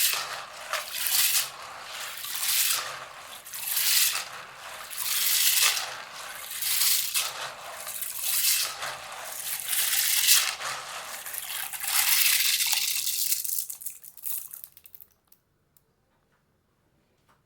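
Dried beans being washed by hand in water, swished and rubbed in a series of wet, rattling swishes about every second and a half. The swishing thins out and stops about two seconds before the end.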